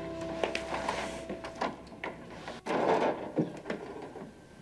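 A door being opened and shut, with scattered footstep-like clicks on a hard floor: one sharp latch click about two and a half seconds in, followed at once by a dull thud. A music cue fades out in the first second and a half.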